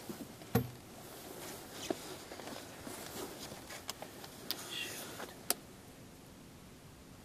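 Faint rustling with a few sharp clicks and taps close by and a soft thump about half a second in, quieter over the last second.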